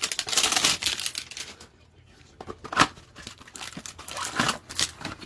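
A Panini Prizm trading-card hanger box being torn open: about a second and a half of continuous tearing and crinkling of the packaging, then scattered crackles and rustles as it is handled.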